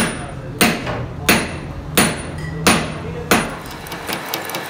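Hammer striking the key of a lathe's four-jaw chuck six times, sharp ringing metal-on-metal blows about two-thirds of a second apart, as the chuck jaws are tightened on the workpiece. Near the end, the running lathe's fast, even ticking as a drill bores into the spinning workpiece.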